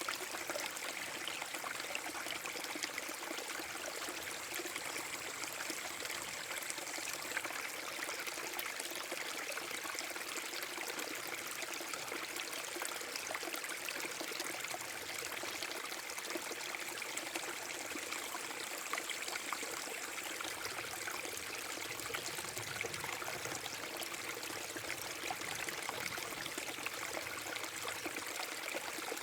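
Small forest-brook waterfall: water splashing and trickling over rocks in a steady, unbroken rush.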